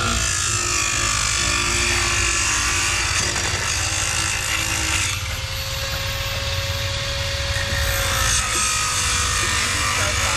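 Steady power-tool noise, with a faint steady whine for a few seconds in the middle.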